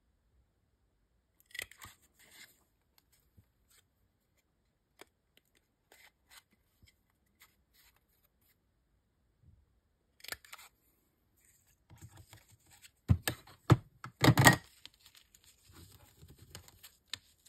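Kraft paper and card being handled and shifted on a cutting mat: scattered light rustles and ticks, then a burst of louder knocks and rustling about thirteen seconds in.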